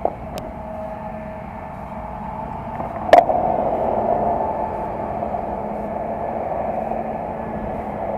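A skateboard slapped down onto concrete with a sharp clack about three seconds in, followed by its wheels rolling steadily over the concrete.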